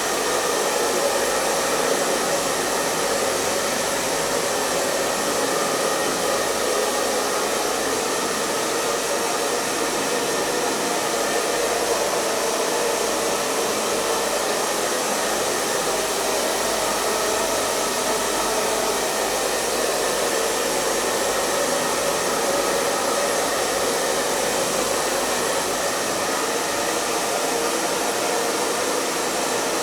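Hair dryer running steadily: a continuous, even rush of blown air over the motor's hum, with no change in speed.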